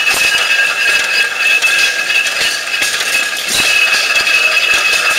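Antique flywheel engines and belt-driven machinery running: a steady clatter of small knocks and rattles, with a steady high whine running through it.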